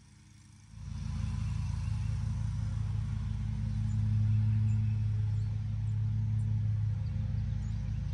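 John Deere Z930M zero-turn mower's engine running steadily while mowing, coming in suddenly about a second in.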